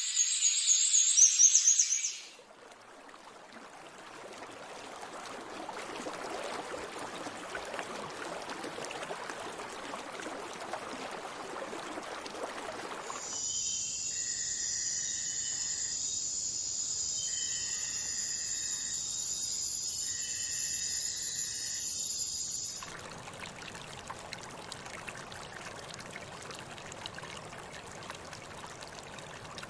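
Rainforest ambience in spliced sections. First, high bird calls for about two seconds. Then an even hiss like running water, then about nine seconds of steady high-pitched tones with three long repeated call notes, and then the hiss again, quieter.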